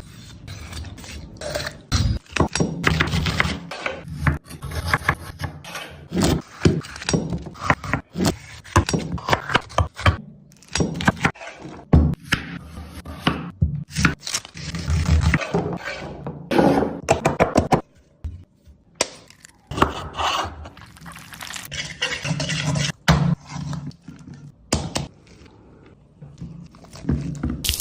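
Irregular knocks, thuds and scrapes of kitchen work with utensils, many sharp strikes a second or so apart.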